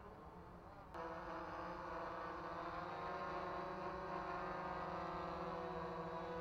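Bayangtoys X21 quadcopter drone's propellers buzzing overhead: a steady whir of several tones that starts abruptly about a second in and grows slightly louder as the drone comes lower.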